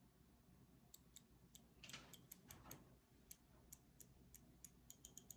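Insulin pen clicking faintly as its 34-unit dose is pushed in under the skin; the clicks start about a second in, irregular at first, and come faster near the end. A soft rustle about two seconds in.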